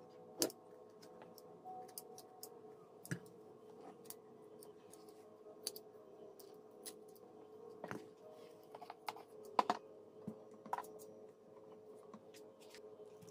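Scattered light clicks and taps of utensils and dishware as boiled plantains are peeled by hand and the pieces set down on a plate, irregular and a few seconds apart, over a faint steady hum.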